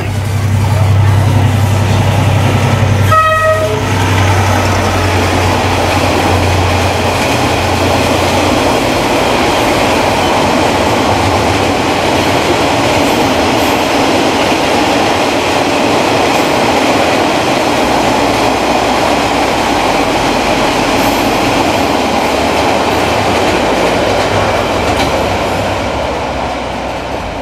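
A full-size train running close by on the rails: a loud, steady rumble and wheel-on-rail noise throughout. A brief horn-like tone sounds about three seconds in, and the deep low rumble fades after the first several seconds.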